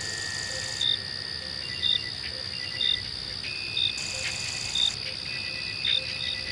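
Night-time insect chorus: a steady high trill with a separate short chirp repeating about once a second, and fainter pulsing chirps beneath.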